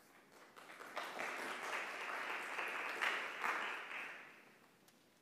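Audience applauding: the clapping swells about a second in, holds for about three seconds, then fades out.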